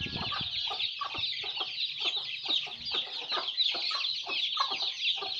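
A flock of free-range village chickens clucking, with a dense, continuous chorus of many short, overlapping high-pitched calls.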